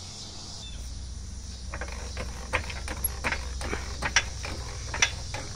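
Hydraulic floor jack (a Pittsburgh 3-ton low-profile rapid-pump jack) being pumped by its handle to lift the car at its jack point, giving a run of irregular metallic clicks and clanks.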